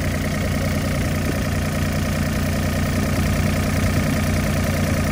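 Mini excavator's diesel engine idling steadily, heard close up during a blow-by check with the crankcase cap loose. Little gas pushes out of the crankcase, a sign of well-sealed pistons in a smooth-running engine.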